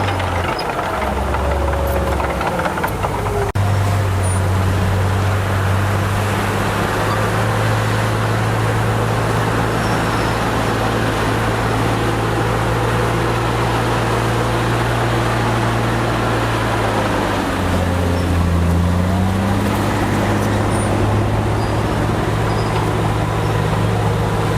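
Bulldozer's diesel engine running steadily under load. Its pitch drops about a second in and comes back up a few seconds later with a sharp knock, then dips and climbs again near the end.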